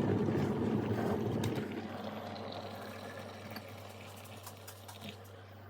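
Water poured from a kettle into a mug for tea, the splashing starting strongly and fading away over a few seconds.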